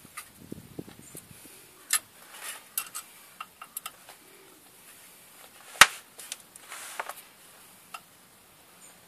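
Scattered clicks and light knocks of tools and parts being handled during clutch reassembly on a car, with one sharp, louder click near the middle.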